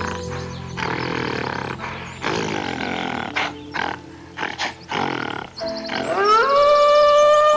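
Background music with an animal's rough, roaring grunts, then a long pitched call that rises and holds near the end.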